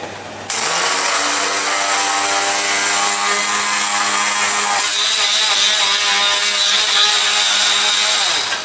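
Handheld immersion blender switched on about half a second in, its motor running steadily as it grinds hard-frozen yogurt mousse into a powdery snow. A higher whine joins about halfway through, and the motor spins down just before the end.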